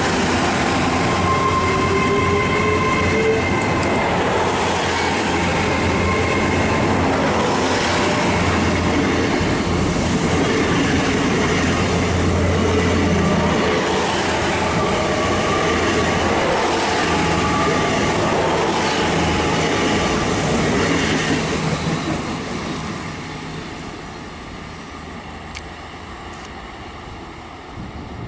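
Train running through the station on steel rails, with a steady rumble and thin high squealing tones from the wheels; it stays loud for about twenty seconds, then fades away as it leaves.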